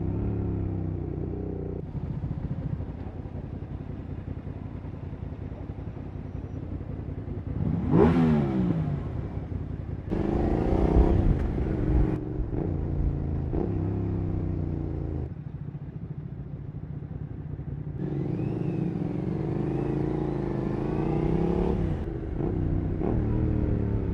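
Suzuki SV650's V-twin engine through a Cobra SC3 aftermarket exhaust, revving up and down while riding. There is a quick sharp rise and fall in revs about eight seconds in, and the revs climb again a couple of seconds later.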